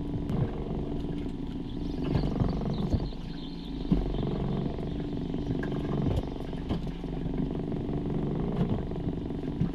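Small outboard motor idling steadily, with a few short knocks and clicks over it.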